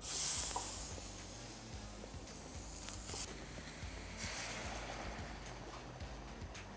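Marinated beef chops sizzle as they are laid onto a hot tawa griddle, a loud hiss that fades over a second or so. Water poured from a jug onto the hot griddle then sizzles in two shorter bursts of hissing.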